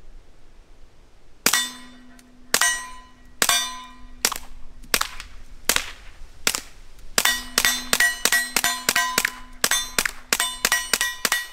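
Taurus TX-22 .22 LR pistol firing through an Odin Works Nav 22 suppressor: a few evenly spaced shots about a second apart, then a fast string of around three shots a second as the rest of the magazine is emptied. A metallic ringing lingers between the shots.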